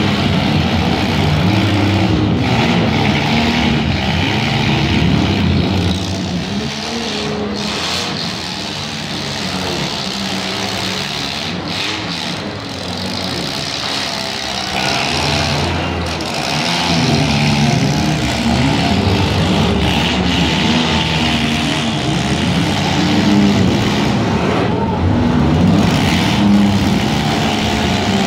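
Several demolition derby cars' engines running and revving together, their pitch rising and falling, easing off for a while near the middle before picking up again.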